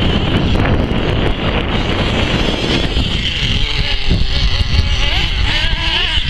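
Wind buffeting the microphone over the steady buzz of radio-controlled cars racing on a dirt track. In the second half, a motor's pitch rises and falls as it revs.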